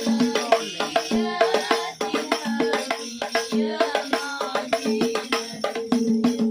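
Madurese hadroh ensemble playing fast, dense interlocking rhythms on hand-struck frame drums, with tambourine jingles over pitched drum tones.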